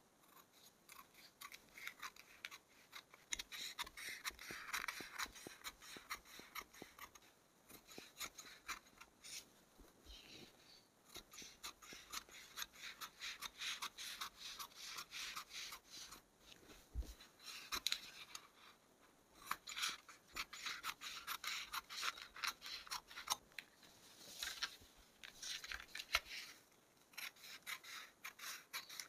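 Scissors cutting through blouse fabric: runs of quick snips and blade rasping, broken by short pauses as the cloth is repositioned.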